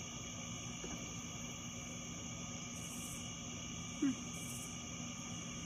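Night insects trilling in a steady chorus of several high tones, with two short, higher-pitched buzzes partway through and a brief low chirp about four seconds in.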